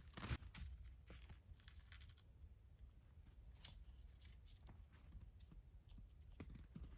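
Near silence, with a few faint, scattered clicks and crunches.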